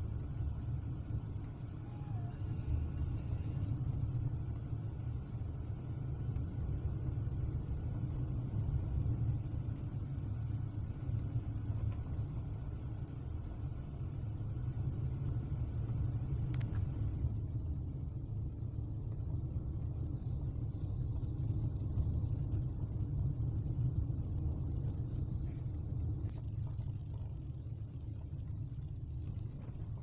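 Kia Forte driving on a dirt road, heard inside the cabin: a steady low rumble of tyres and road noise. The lighter hiss above the rumble drops away a little over halfway through.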